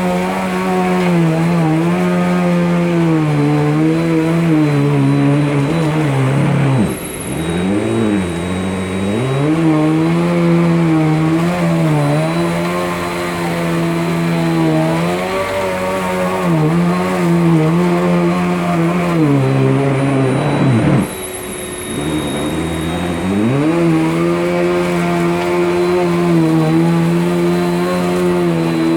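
Bissell PowerLifter upright vacuum cleaner running on a rug, its motor whine wavering in pitch as it is pushed back and forth. Twice, about a quarter of the way in and again about two-thirds in, the pitch drops sharply and then climbs back.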